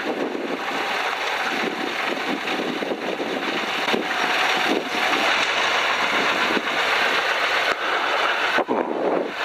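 Piper PA-12 Super Cruiser's propeller engine running as the tail-wheel plane rolls on a grass strip, with a steady rush of wind on the wing-strut microphone. A few brief knocks from the ground roll come through it.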